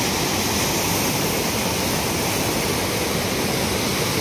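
Fast mountain river rushing over boulders in white-water rapids: a steady, unbroken rush of water.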